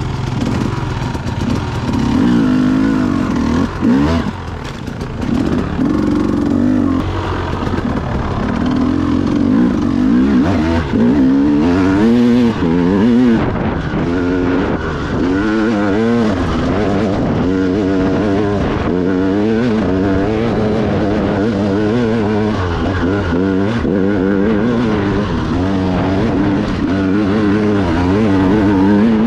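Dirt bike engine heard from on the bike as it is ridden, its revs rising and falling over and over with throttle and gear changes.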